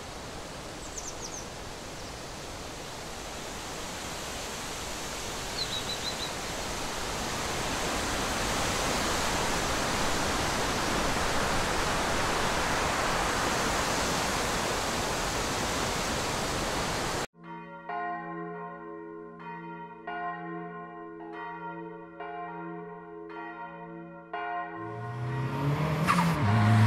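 Soundtrack: a steady hiss that swells slowly for about seventeen seconds, with two brief bird-like chirps early on. It then cuts off suddenly to music of bell-like chords struck over and over at an even pace, and low notes swell in near the end.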